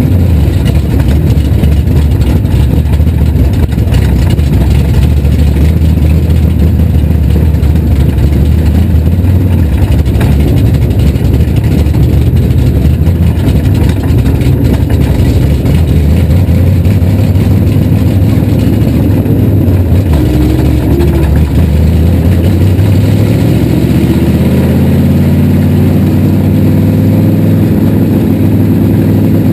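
Dirt-track race car's V8 engine heard from inside the cockpit, running loud at low revs as the car creeps along, its pitch climbing steadily over the last several seconds as it speeds up.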